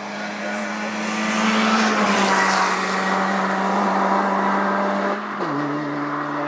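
Race car engine at high revs as the car climbs past, loudest about two seconds in. Its note drops sharply just after five seconds in.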